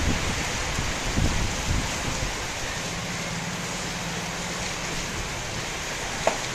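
Heavy tropical rain falling steadily, with low rumbles in the first two seconds and a vehicle engine running low on the wet road below. A single sharp tap near the end.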